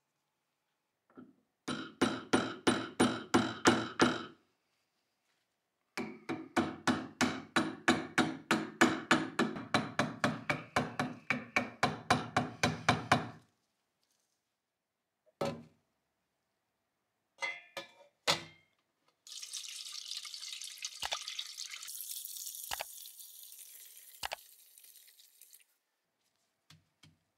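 Rapid light tapping, about four evenly spaced strokes a second, in two spells of several seconds each. A few single knocks follow, then a steady hiss lasting about six seconds that fades near the end.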